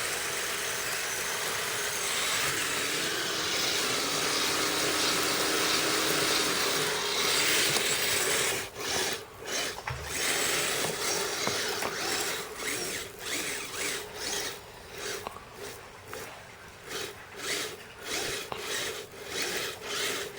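Kyosho Blizzard SR radio-control snowcat driving through snow: its electric motors running and its tracks grinding, a steady rasping noise at first, then, from about eight seconds in, short stop-and-go bursts roughly once or twice a second.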